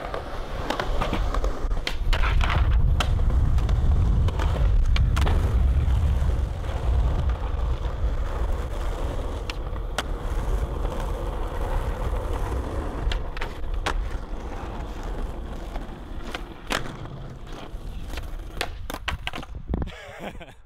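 Skateboard rolling over rough asphalt with a steady rumble, broken several times by sharp clacks of the board hitting the ground; the rumble is strongest in the first half and fades toward the end.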